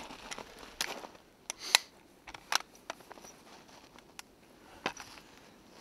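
A handful of short, sharp clicks and ticks spread over a few seconds, the loudest about halfway through the second second, with faint rustling between them.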